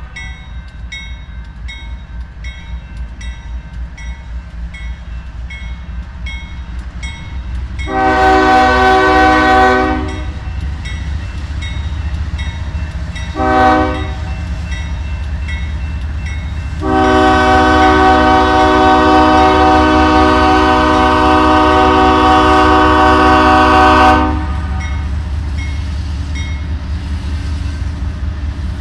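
Freight locomotive air horn sounding the grade-crossing pattern: a long blast about eight seconds in, a brief short toot, then a long blast held for about seven seconds, the loudest sound here. Underneath runs the low rumble of the moving train, and a crossing bell dings about twice a second through the first eight seconds.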